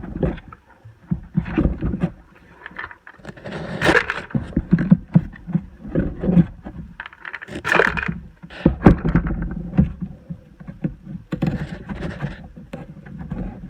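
Packaging being handled while small plastic toy wheelie bins are unpacked: irregular rustling, scraping and light knocks, with louder rustles about four and eight seconds in.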